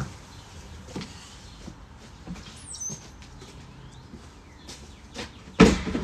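Scattered knocks and clatter as a plastic bin is carried into a metal-mesh kennel run, with one loud knock about five and a half seconds in. A short high chirp sounds about two and a half seconds in.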